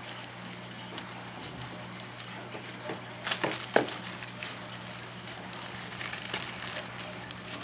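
Small clear plastic zip-lock bag crinkling and crackling as it is opened and handled, with a louder cluster of crackles about three and a half seconds in.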